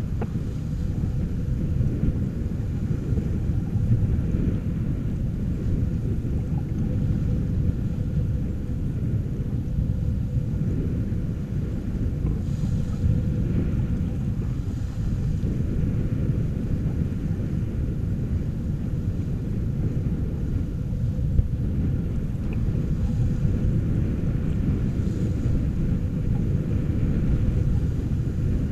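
Wind buffeting the microphone of a camera aboard a sailing yacht under sail, a steady low rumble, with water rushing along the hull.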